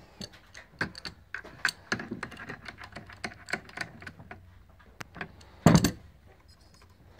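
Irregular light clicks and taps of metal fittings being handled and fitted on a misting pump's bulkhead assembly, with one louder knock near the end.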